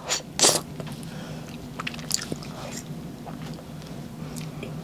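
Close mouth sounds of eating a soft-serve ice cream cone: two louder wet mouthfuls in the first half second, then quieter scattered lip and tongue clicks over a steady low hum.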